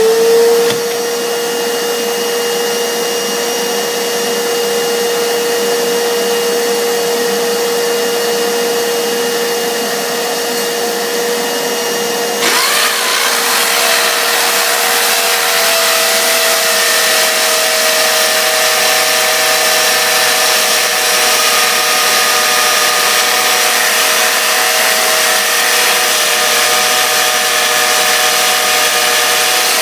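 Electric drill spinning up and running steadily with a high motor whine, a freshly sharpened bit being tried in the masonry. About twelve seconds in the sound turns suddenly louder and harsher, with a second, higher whine joining in.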